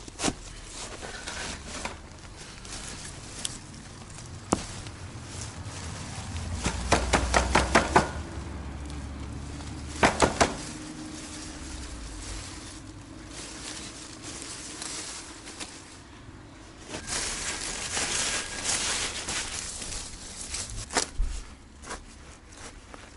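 Horseradish roots being dug out of a garden bed with a spade and by hand: scattered knocks and clicks of soil and roots, a quick run of them about a third of the way in, then a few seconds of dry leaves rustling.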